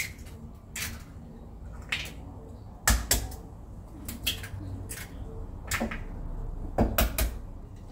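Eggs being cracked against the rim of a mixing bowl: a string of short, sharp knocks and taps, the loudest about three seconds in.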